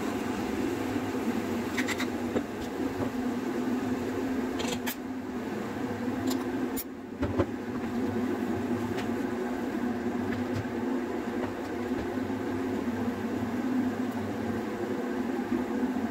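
Steady hum of a kitchen extractor fan running over the hob, with a few light clicks and scrapes of a wooden spatula stirring food in a frying pan.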